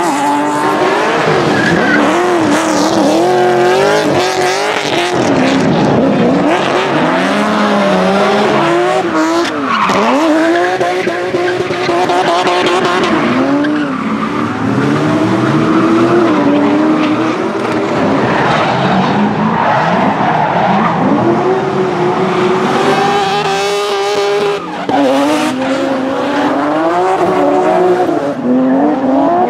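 Drift cars sliding sideways at full throttle: engines revving high, their pitch rising and falling constantly as the throttle is worked, over the squeal and hiss of spinning rear tyres.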